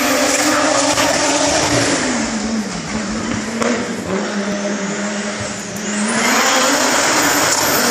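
Race car engine revving hard on a hillclimb, its pitch sagging twice and then climbing again about three-quarters of the way through.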